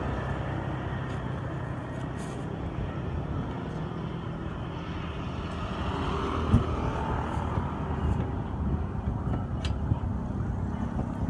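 Roadside street ambience: a steady low rumble of traffic, with a few light clicks and a single knock about six and a half seconds in.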